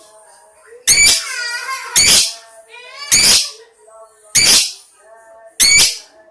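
Lovebird singing: loud, shrill, sharp notes repeated about once a second, five in all, with softer warbling chatter between them.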